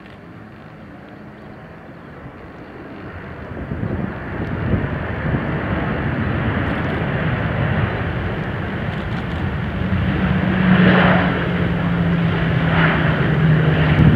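Boeing 737-800 jet engines growing steadily louder as the airliner rolls out along the runway after touchdown, under reverse thrust.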